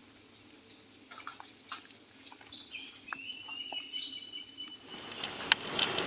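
Faint bird chirps and one thin whistled call held for about a second and a half, among scattered small clicks. A louder hiss builds near the end.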